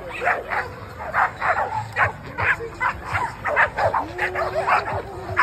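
Pit bull-type dogs barking and yipping in quick short barks, several a second, with a brief whine about four seconds in.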